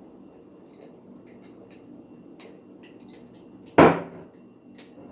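Faint small clicks and scrapes of someone struggling to open the cap of a rice vinegar bottle, with one loud knock on a hard surface near the end.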